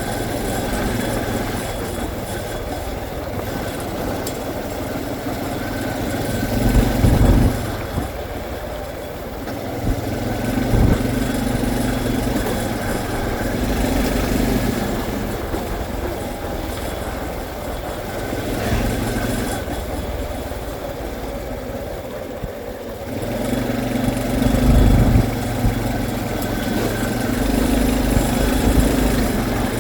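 Honda CT125's small single-cylinder engine running under way, with wind rushing across the microphone; the engine note swells louder a few times, around a quarter of the way in and again later.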